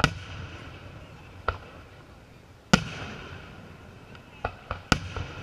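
Aerial firework shells bursting: a loud bang at the start, a softer one, a second loud bang midway, then a quick run of four bangs near the end, each trailed by a low rumbling echo.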